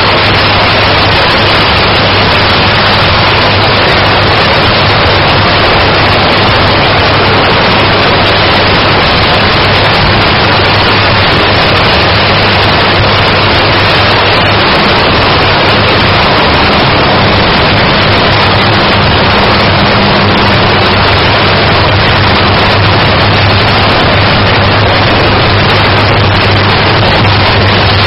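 80 MW electric arc furnace running: the arcs give a loud, steady crackling roar with a constant low hum beneath it.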